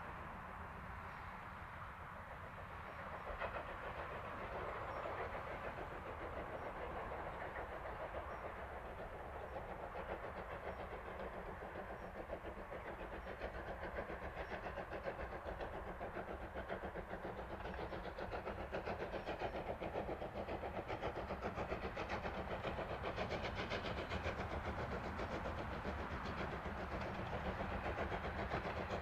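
Steam locomotive hauling a train, its exhaust chuffing in a quick, steady rhythm that grows louder as it approaches.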